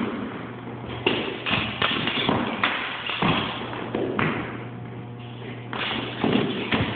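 Fencers' footwork on a wooden floor during a foil bout: irregular thumps as feet land and lunge, with sharper taps mixed in, several times a second at the busiest moments.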